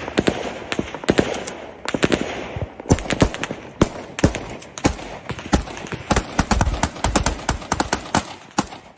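Small-arms gunfire: many sharp shots, irregular and overlapping, with rapid runs, densest in the second half.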